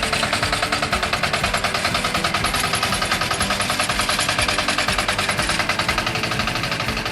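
Tractor engine running steadily while plowing, with a fast, even chugging beat.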